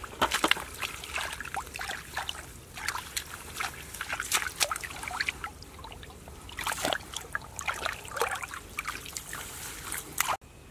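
Hands splashing and sloshing in a shallow, muddy puddle as they grope in the mud, a dense run of irregular splashes that stops abruptly shortly before the end.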